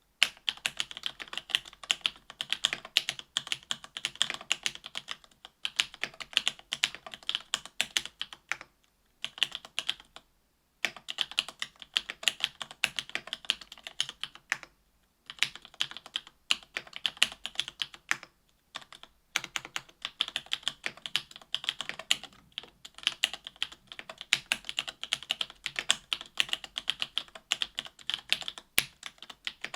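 Typing on an AL.BOK mechanical keyboard with stock SP-Star Meteor White linear switches (57 g) in an aluminum plate and GMK keycaps: a fast, continuous clatter of keystrokes. There are short pauses about 9, 15 and 19 seconds in, and one louder keystroke near the end.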